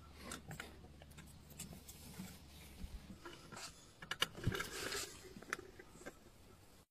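Patio umbrella being raised by hand on a rope run through a hook and small pulley: irregular scraping and clicking as the rope rubs and the hub and ribs slide up the pole and the canopy opens, busiest about four to five seconds in.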